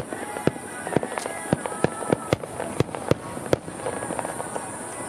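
Fireworks display: aerial shells bursting in a rapid, irregular volley of sharp bangs, which thins out after about three and a half seconds.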